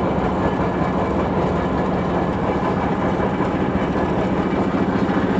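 Feed mixer truck's engine running steadily, a constant low hum.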